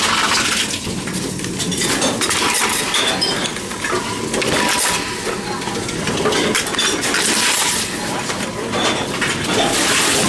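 Continuous clatter and clinking of cans and bottles being taken in and handled by reverse vending machines, with many short metallic and glassy knocks.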